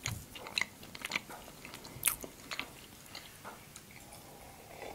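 Close-miked chewing of a soft marzipan sweet, with sharp, wet mouth clicks in the first two seconds or so, growing fainter and sparser after that.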